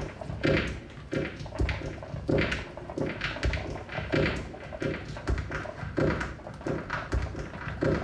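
A steady rhythm of short knocks with scratchy scrapes, about two a second.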